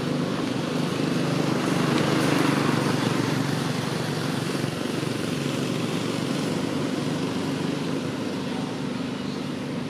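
A motor engine running with a steady hum, growing louder about two seconds in and then slowly easing off.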